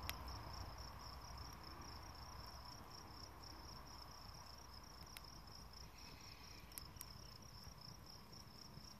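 Faint, steady chirping of crickets, a fast even pulsing trill. A few sharp crackles from the burning twigs come near the start and around five and seven seconds in.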